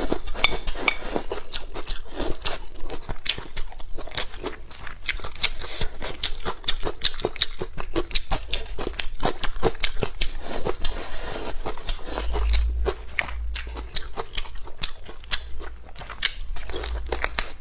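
Close-miked mouth sounds of a person eating a mouthful of rice and braised pork trotter: wet chewing and lip-smacking made of many quick, irregular clicks. A few dull low thumps come about two-thirds of the way through.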